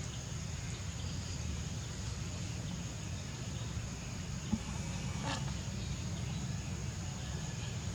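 Steady high insect buzzing over a low rumble, with a brief click about four and a half seconds in and a short sharp sound just after.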